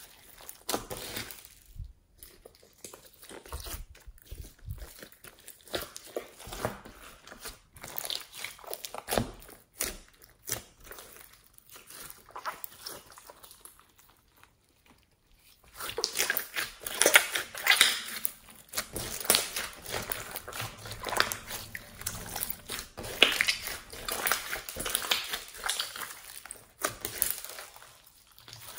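Hands kneading, squeezing and stretching a large clear slime studded with beads and glitter, giving irregular sticky squelches and small clicking pops. The sound is quieter at first and becomes louder and busier a little past halfway.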